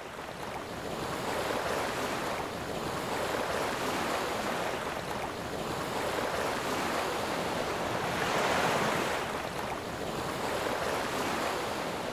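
Surf of the Baltic Sea: a steady rush of waves washing onto the shore, swelling and easing every two seconds or so.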